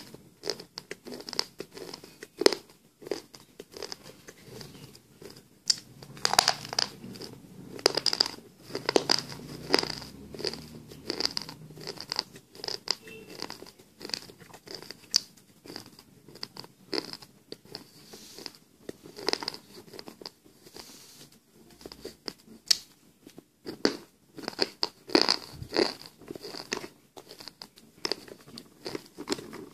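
A person biting and chewing pieces of slate pencil: a run of irregular, crisp crunches.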